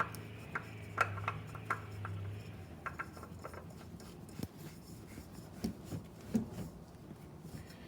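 Scattered clicks, taps and rubbing as a spin-on oil filter is reached up into a cramped space and threaded on by hand. A low steady hum stops about two and a half seconds in.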